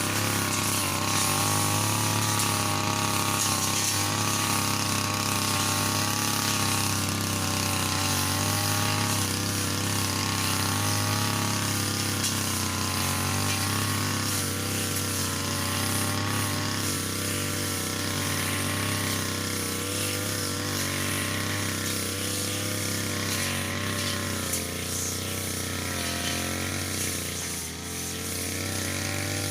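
Brush cutter engine running steadily while cutting grass, its pitch wavering slightly with the load.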